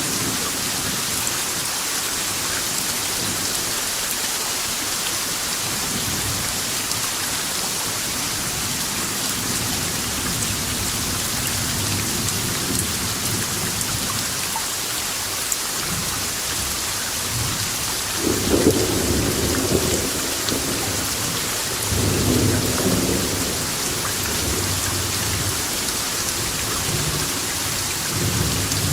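Steady heavy rain hissing, with rolls of thunder rumbling twice in the second half and a fainter rumble near the end.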